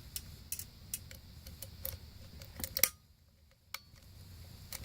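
Irregular light clicks and ticks over a low steady hum, with a short near-silent gap a little past halfway.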